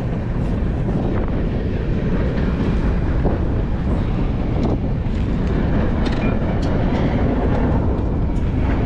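Freight train rolling past, a steady loud rumble with the clatter of the wagons.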